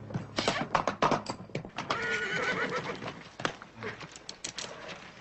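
Horses neighing, with a held call about two seconds in, over irregular clattering hoofbeats.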